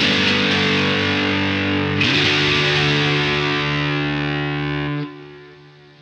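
Distorted electric guitar chords through the Southampton Pedals Indie Dream's fuzzy drive and ambience section, with a fresh strum about two seconds in. The chord is cut off about five seconds in, leaving a faint ringing tail that fades away.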